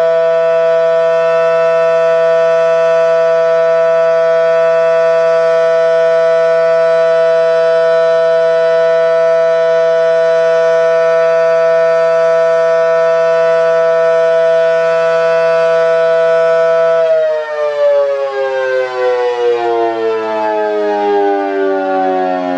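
Outdoor warning siren sounding a steady two-note alert chord, then winding down about 17 seconds in, its pitch sliding steadily lower as it spins down.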